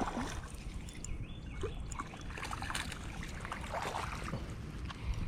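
Wind rumbling on the microphone over water sounds from the bank, with a few small clicks and faint chirps.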